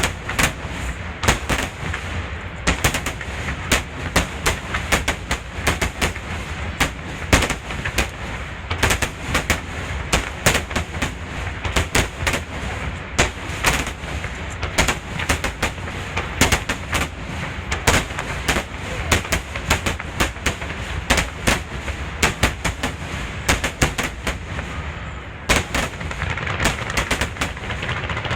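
Fireworks finale barrage: aerial shells bursting in rapid, dense succession, several bangs a second with no let-up. Near the end the bangs give way to a thicker, steady crackling hiss.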